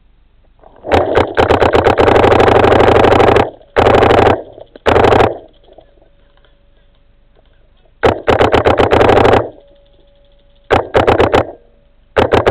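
Paintball marker firing rapid strings of shots close to the microphone, loud enough to clip. A long burst starts about a second in, and shorter bursts follow with pauses between them.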